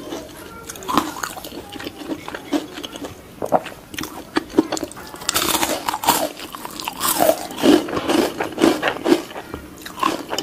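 Crisp lechon (whole roast pig) skin being bitten and chewed: irregular crunches and smacking, more frequent in the second half.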